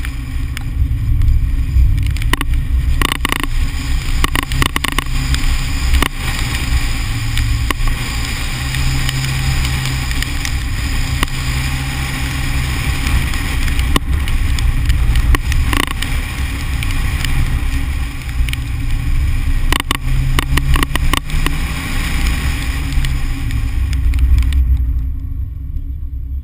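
Car engine driven hard around a cone course, its pitch rising and falling with throttle and gear changes, mixed with wind rush and knocks on a microphone mounted outside the driver's door. The sound drops away about two seconds before the end as the car slows.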